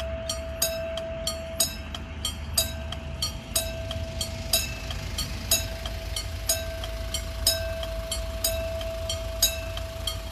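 Electromechanical level-crossing alarm bell ringing: a hammer strikes the gong rapidly and evenly, so the bell tone carries between strokes, with a stronger stroke about once a second.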